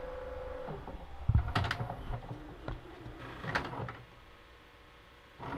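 A steady hum that cuts off under a second in, followed by scattered knocks and clatter, the loudest about a second in and another cluster past the middle.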